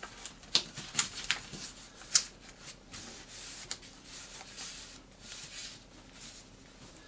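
A sheet of paper being folded in half and creased: several sharp crinkles and crackles in the first couple of seconds, then softer rubbing and rustling as the fold is pressed flat by hand.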